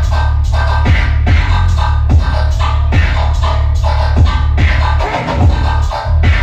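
Riddim dubstep played loud through a DJ sound system: a heavy, steady sub-bass under drum hits about two a second, with repeating synth notes above.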